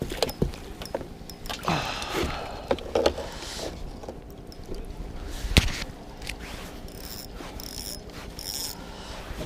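Fishing reel being wound and tackle handled as a hooked trout is brought in: scattered sharp clicks and knocks, a sharp one a little past halfway, and short bursts of mechanical scraping near the end.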